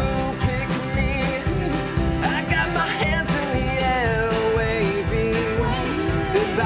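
Live band playing an Americana indie rock song, with guitars carrying the tune.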